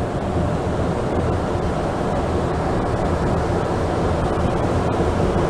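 Montreal Metro rubber-tyred train car running at speed, a steady loud rumbling roar heard from inside the car, getting slightly louder towards the end.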